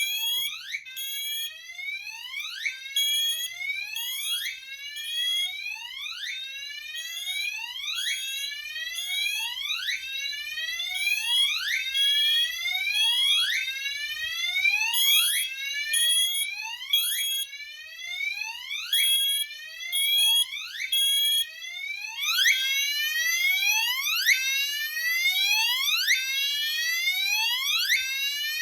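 A fire alarm sounder sounds a repeating sweeping tone, about one sweep every 1.3 seconds. Over it, the duct detector test station's piezo sounder beeps in the three-pulse temporal pattern. The beeping stops about three quarters of the way through, as a high hiss comes in.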